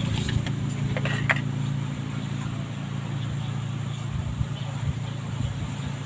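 A low, steady engine hum that fades over the first couple of seconds. A few light clicks come about a second in.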